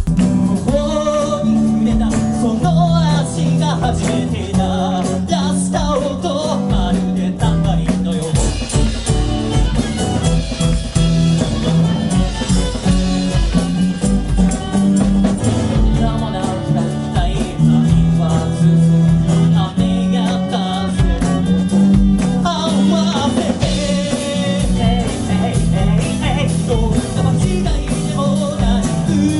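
Live band music with a steady drum beat, electric bass and acoustic guitar, and melody lines from a brass horn and violin.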